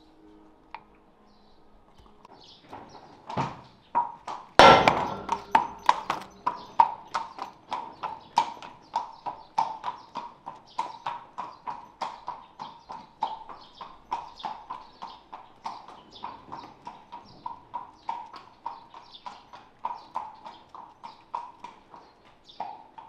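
A regular run of metallic strikes on a steel horseshoe, about two to three a second, each with a short ring. It starts a few seconds in and is loudest near its start.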